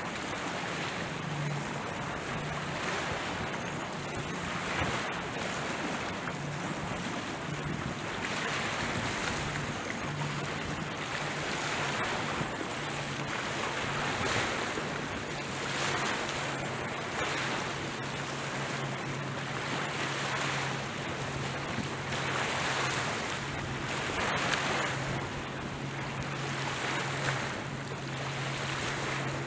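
Small waves washing against the shore rocks, a steady rush that swells and eases every couple of seconds, with wind buffeting the microphone. Under it runs a low engine hum from a boat, broken at first and continuous from a little past halfway.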